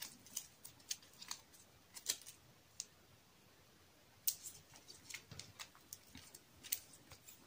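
Photocards being handled and counted by hand: a faint, irregular scatter of light clicks and taps.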